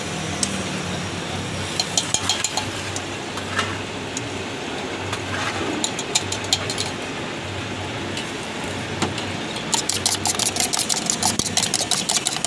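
A metal spoon beating eggs in a steel mug: the spoon clinks against the mug a few times at first, then quickly and steadily from about ten seconds in. A steady low hum runs underneath.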